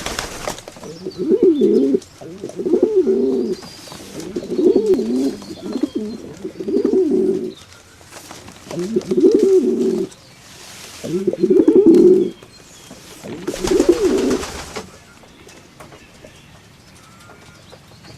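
Pigeons cooing: a string of low, wavering coos every second or two, which stop a few seconds before the end.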